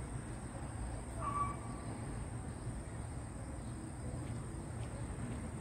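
Steady low outdoor rumble with a single short bird call about a second in.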